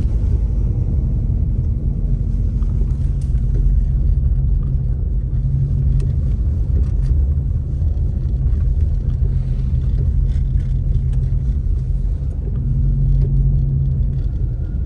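Steady low rumble of a car driving through deep snow, heard inside the cabin: engine and tyres rolling over snow-covered road, with a few faint clicks.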